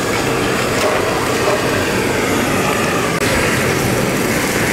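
Handheld gas blowtorch running steadily, its flame searing the grilled bluefin tuna keel.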